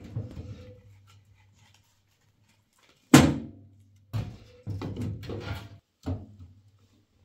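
A sharp, loud knock about three seconds in, then a stretch of irregular clattering and a second knock near the end, over a low faint hum.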